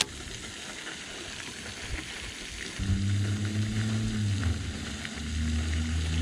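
Wind hissing on the microphone, then from about three seconds in a low, steady whir from a baitcasting reel being cranked, which drops a little in pitch partway through.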